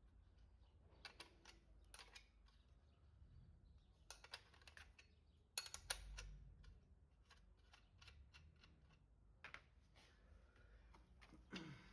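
Faint scattered clicks and light taps of an 18mm spanner working a scooter's front axle nuts, with two sharper clicks about six seconds in.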